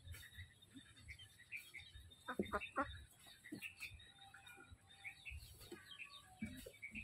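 Poultry calling: many short, high peeps throughout, with a quick run of louder calls about two and a half seconds in.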